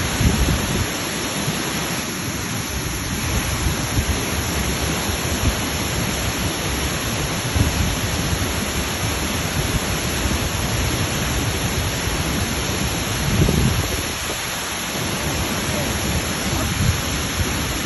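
Waterfall: a steady, loud rush of falling water with a low, uneven rumble underneath that swells about thirteen seconds in.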